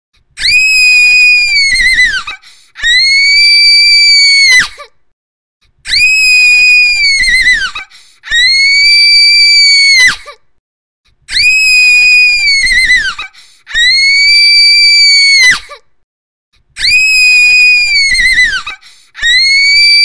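A girl's shrill scream, repeated over and over. Each scream lasts about two seconds, holds one very high pitch, and drops off at the end. They come in pairs, with a short silence after each pair.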